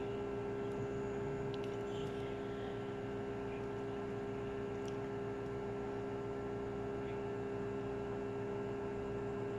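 Small automatic egg incubator running, giving a steady hum with one strong tone and several fainter ones that do not change.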